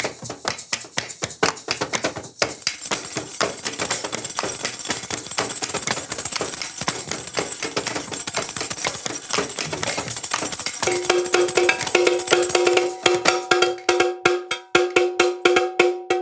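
Hand percussion played in a fast, clattering jam: sticks tapping and a tambourine jingling. From about 11 s a steady held note sounds. Near the end, a cowbell struck with a stick comes through in quick, even beats.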